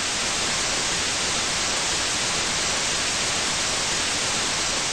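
TV static sound effect: a steady hiss of white noise that eases off near the end.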